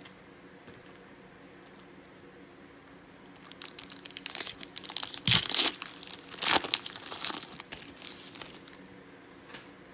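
Foil trading-card pack wrapper crinkling and crackling as it is handled, starting about three and a half seconds in, with the loudest crackles in the middle, then dying away.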